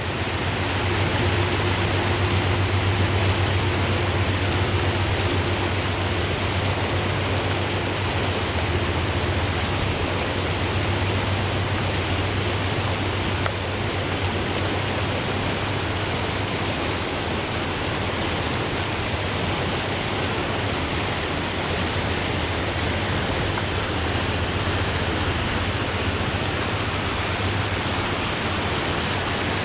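Steady rush of river water running over rocks and through small rapids, with a low rumble underneath that is stronger in the first half.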